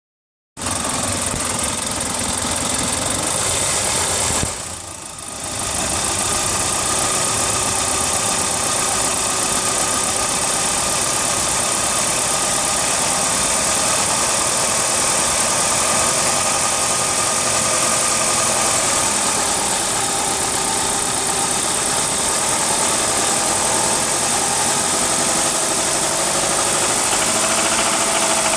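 Mitsubishi 4G64 2.4-litre GDI inline-four engine running steadily, briefly quieter about five seconds in. Near the end a knock sets in that the owner cannot identify.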